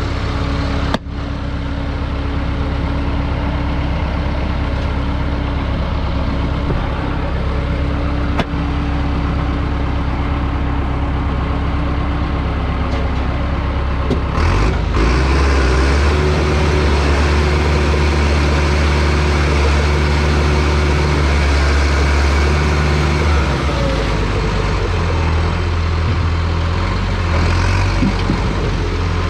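Bulldozer's diesel engine running hard as it pushes logs: a loud, steady heavy drone whose pitch shifts about halfway through and again later as the load changes.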